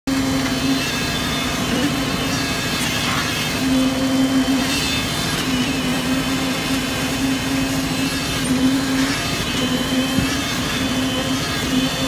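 Small engine of a site concrete mixer running steadily, its low hum wavering and briefly dropping out now and then.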